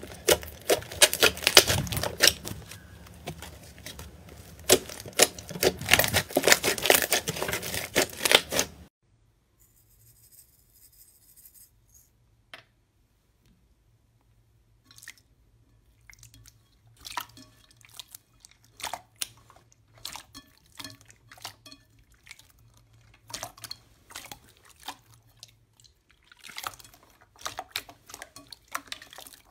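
Hands pressing pink fluffy slime, with rapid dense crackling and popping as the air pockets burst. This stops abruptly about nine seconds in. After a few seconds of near silence, hands work a clear teal slime in a bowl of water, giving sparser wet clicks, pops and drips.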